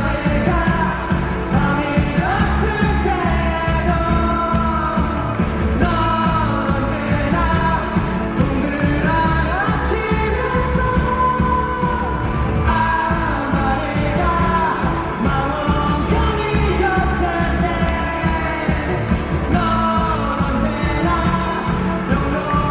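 Live band playing a pop-rock song with a male lead singer, loud and continuous as heard from the concert audience.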